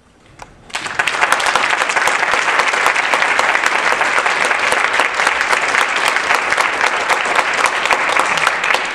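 Audience applauding, starting with a few scattered claps, swelling within the first second into steady applause and dying away near the end.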